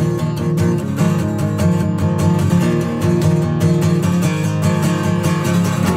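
Background music with a strummed guitar.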